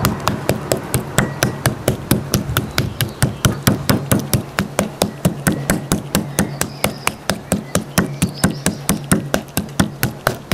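Metal meat mallet pounding thick raw pork neck steaks on a wooden cutting board to tenderise them: a long run of rapid, even strikes, about four or five a second.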